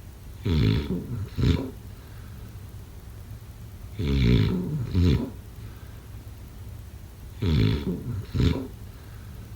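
Snoring in a steady rhythm: three snores about three and a half seconds apart, each a longer snore followed at once by a short second one.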